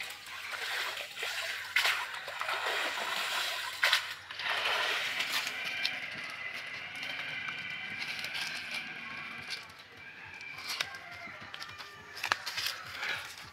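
Water splashing and streaming off a wet fishing net as it is hauled out of a pond onto the bank, loudest in the first half, with sharp irregular clicks and splats.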